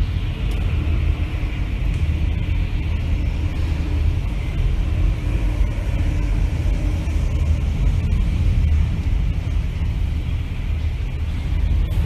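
Typhoon wind and driving rain heard through window glass: a steady, loud low rumble with a hiss of rain above it.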